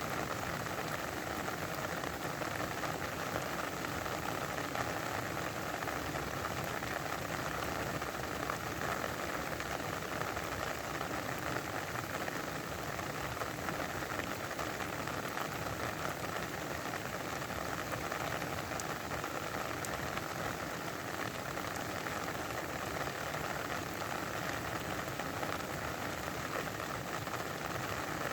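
Steady rain falling: a dense, even hiss of drops that holds one level without letting up.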